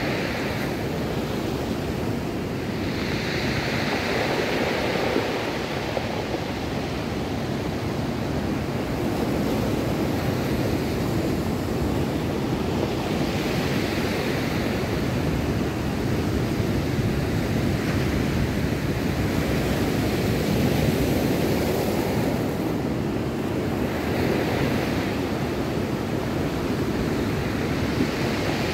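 Ocean surf breaking and washing up a cobble beach, a continuous hiss that swells roughly every ten seconds as each wave comes in, with wind buffeting the microphone.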